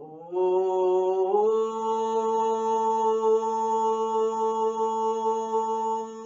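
A woman chanting OM in one long held tone; the note steps up in pitch about a second and a half in and then holds steady.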